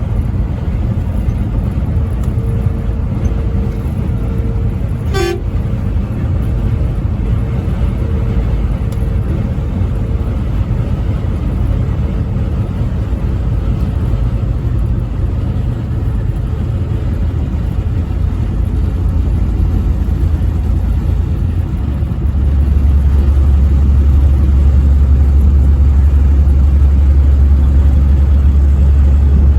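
A truck air horn blows one steady tone. It then dies away over several seconds in repeated, fading pulses, like echoes coming back. Under it runs the truck's steady low road and engine rumble, which grows louder about 22 seconds in.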